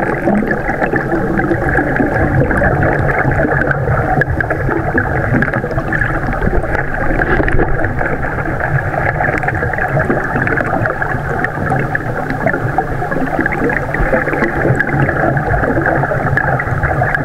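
Steady, muffled rushing and gurgling of water, recorded underwater in a flooded cave.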